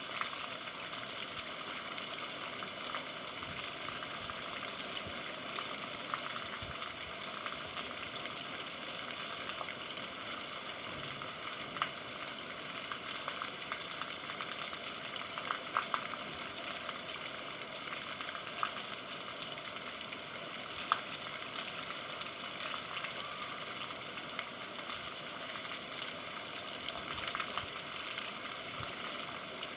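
Steady rain: an even hiss of falling rain with scattered sharper ticks of individual drops.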